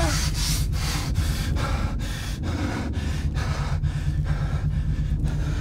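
Men breathing hard in short, quick breaths, about three a second, from the exertion of a fist fight, over a steady low hum.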